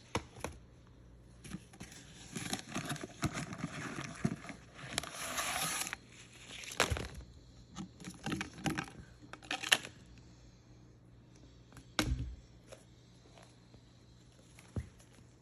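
Toy packaging being handled and opened: crinkling and tearing with several sharp clicks, then a single low thump about twelve seconds in.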